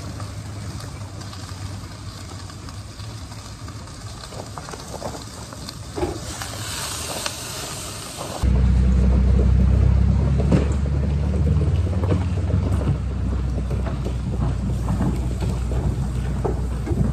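A hot frying pan hissing as steam comes off it, over a low steady rumble. About eight seconds in, the rumble abruptly becomes much louder and deeper and stays that way.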